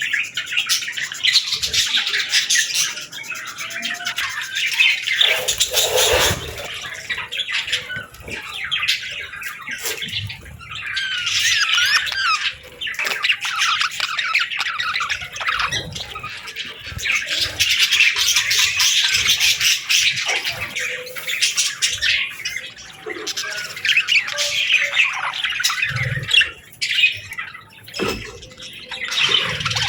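A flock of budgerigars chattering and warbling, a dense stream of quick chirps and squawks that swells and eases.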